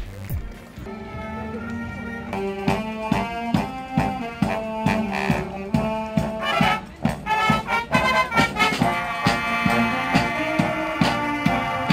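A brass band of saxophones, trombones, trumpets and sousaphone plays a tune over a steady snare and bass drum beat. It comes in about a second in.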